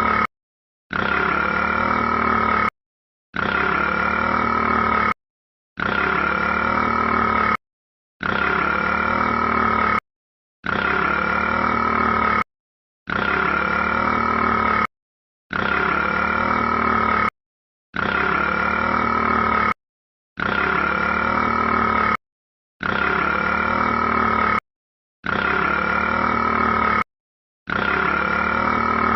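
A rat's burp, the same clip looped over and over: a long, loud burp of about two seconds, then half a second of silence, about a dozen times in a steady rhythm.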